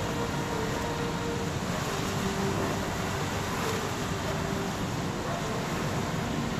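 Floodwater gushing out of a dam's outlet and churning into a swollen river: a steady, unbroken rushing of water.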